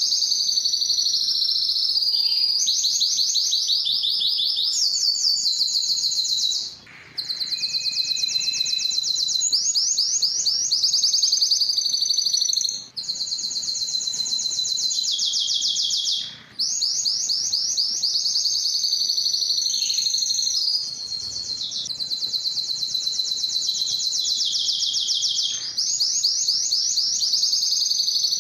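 Timbrado canary singing a long, near-continuous song of rapid high trills and rolls, changing from one tour to the next, with a few brief pauses.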